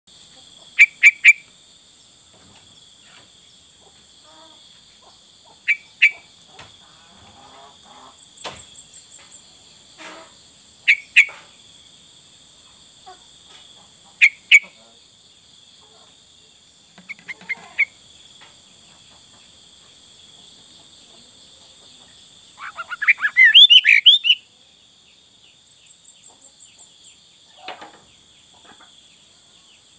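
Sooty-headed bulbul (kutilang) singing: short, clear phrases of two or three notes every few seconds, then a longer warbling run about three-quarters of the way through, the loudest part. A steady high-pitched ringing runs underneath.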